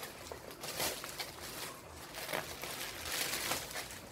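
Plastic courier bags and wrapped parcels rustling and crinkling as they are handled, in several short bursts. The loudest burst comes about three seconds in.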